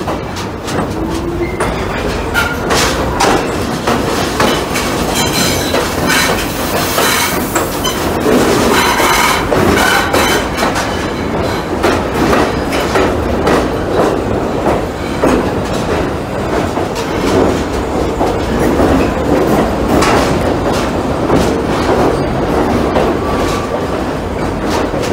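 NYC Subway 3 train running through a tunnel, heard from inside the car: a steady loud rumble of wheels on track with rapid clicking over rail joints, and a few short high squeals from the wheels.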